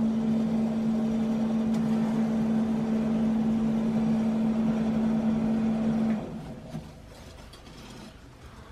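A small electric motor running with a steady hum, which stops about six seconds in.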